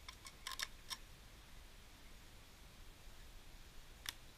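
Light metallic clicks from a thin roll-up stove flue pipe being wound tighter by hand: a quick run of about six clicks in the first second, then one more near the end.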